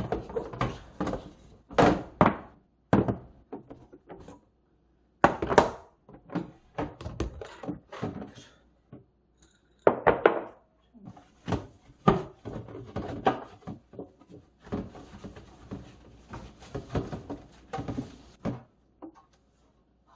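Irregular knocks and clunks of food packs and storage containers being handled and set down in a refrigerator, with a stretch of rustling and clatter late on.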